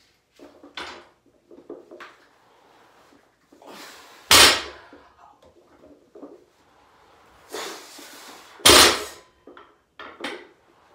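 Loaded barbell set down on the floor between deadlift reps: two loud thuds about four seconds apart, with a few lighter knocks. Each touchdown is led by a heavy, noisy breath.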